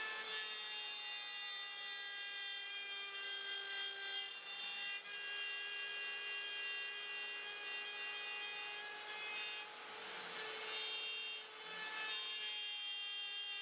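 Home-built CNC router carving a pine board: a steady whine of several tones from the router and its drive motors over a cutting hiss. The tones briefly fade into a noisier hiss near the end, then come back.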